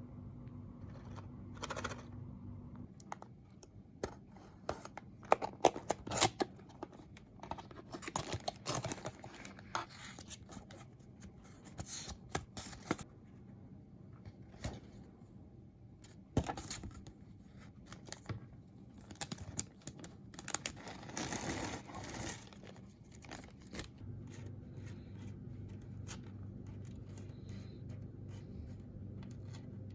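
Packaging being handled and torn or cut open: irregular scraping, tearing and crinkling with sharp clicks, mostly in the middle stretch, over a low steady hum at the start and in the last few seconds.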